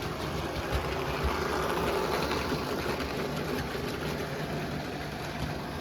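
OO gauge model train running past: a small electric locomotive motor whirring and wheels rolling on the track, getting a little louder midway and then easing off.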